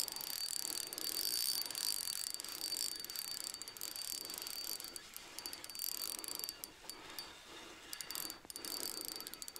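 Spinning reel being cranked, its gears whirring in a steady rhythm as a lure is retrieved. A constant high-pitched cricket trill runs behind it.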